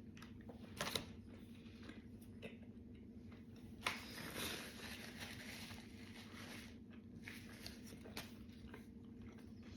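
A person chewing a very large mouthful of KFC fried chicken, with sharp crunches about a second in and again near the middle, over a steady low hum.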